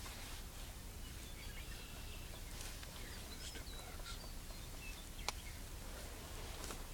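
Birds calling with short, high chirps and whistles, and a single sharp click a little past five seconds in.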